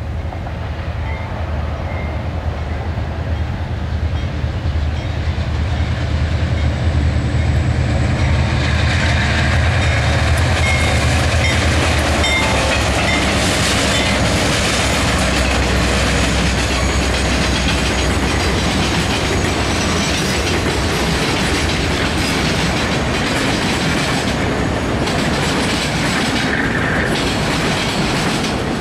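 Freight train with a Ferromex GE Super 7 diesel locomotive passing close: a low engine rumble builds over the first several seconds, then wheels clatter steadily over the rails, with a faint high squeal now and then.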